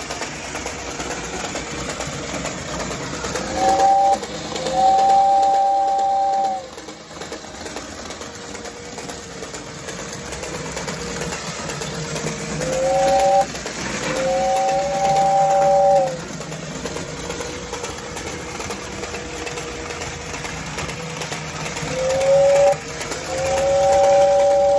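Battery-operated early-1960s Japanese tin toy steam locomotive (Modern Toys Western Special) running along with a steady puffing hiss. Three times it sounds its two-tone whoo-whoo whistle, a short toot followed by a longer one.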